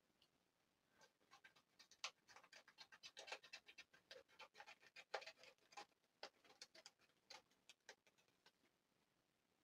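Faint, irregular crackling and clicking from craft supplies being handled off-frame, most likely plastic packaging being opened, with no steady rhythm.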